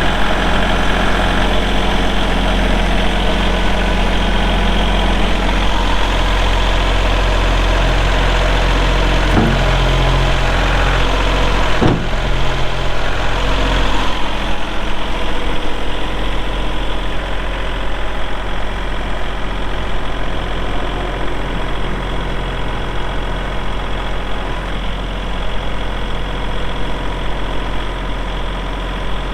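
Kubota L3301 tractor's three-cylinder diesel engine running steadily, with two short clunks about ten and twelve seconds in. About halfway through the sound turns duller and a little quieter.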